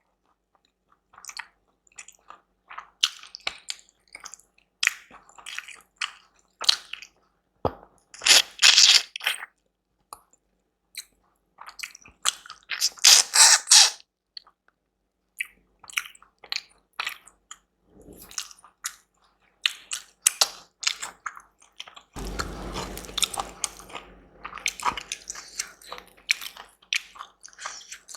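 Close-miked eating: a person biting and chewing food in irregular short bursts, with two louder stretches about a third of the way in and near the middle, and steadier continuous chewing in the last quarter.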